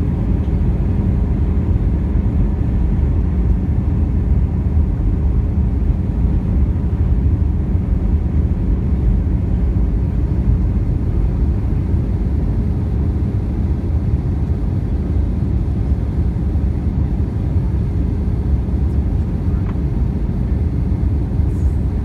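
Airbus A320 cabin noise on final approach: a steady low rumble of the jet engines and airflow, heard inside the cabin beside the wing.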